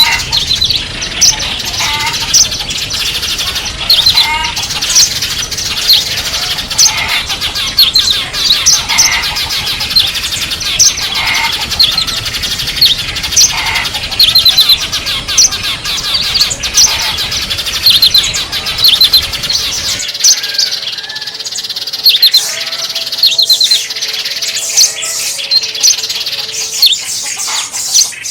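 Small songbirds chirping and twittering in quick, dense, high-pitched calls and short trills, several birds at once. About 20 seconds in the background rumble drops away as a different recording begins.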